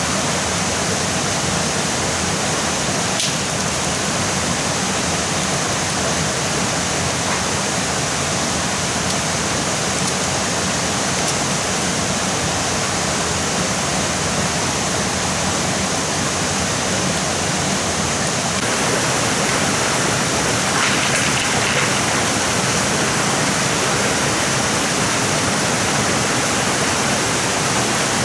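Stream water rushing in a steady, even noise that gets slightly louder about two-thirds of the way through.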